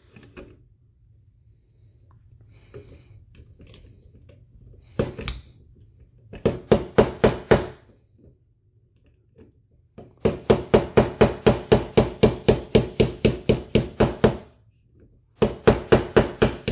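Small gunsmith's hammer tapping a pin punch to drive the front locking block pin out of a Canik TP9SFX pistol frame. The taps are quick and sharp and come in runs with pauses between them, the longest run at about five taps a second.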